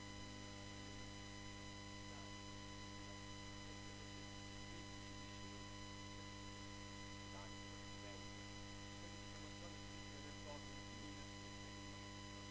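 Steady electrical mains hum, a buzzing stack of fixed tones, with faint, indistinct voices murmuring underneath.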